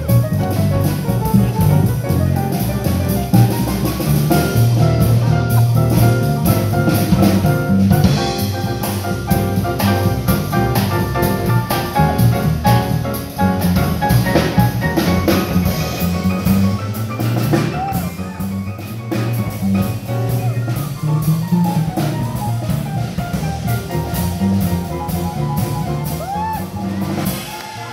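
Small jazz group playing: a walking upright double bass, piano, and drums with cymbals.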